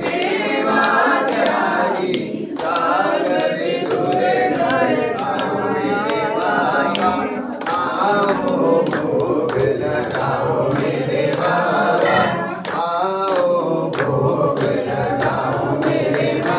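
Several voices singing together in a devotional chant, with many sharp clicks through it.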